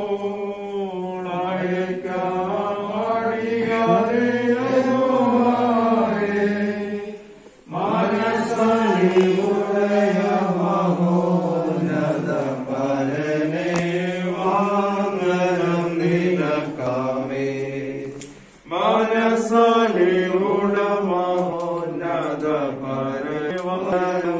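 Voices chanting a Christian hymn in slow, drawn-out melodic phrases, with two brief breaks, about 8 and 18 seconds in.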